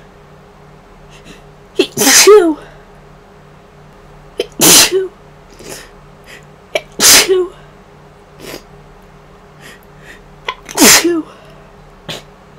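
A woman sneezing four times in a row from a cold or flu, about two to four seconds apart. Each sneeze opens with a short, sharp catch and ends in a longer, loud blast that falls in pitch.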